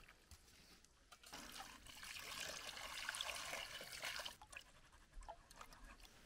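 Water poured from a plastic mug onto steel plates and cups in a steel pan, splashing for about three seconds starting a second in, as the dishes are rinsed. A few faint clicks follow.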